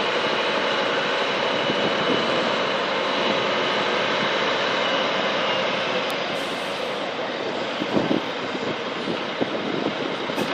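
Diesel engine of a 1997 Mack RD690S truck tractor running steadily as the bobtail tractor drives up at low speed, easing off slightly about halfway through as it pulls up, with a brief knock near the end.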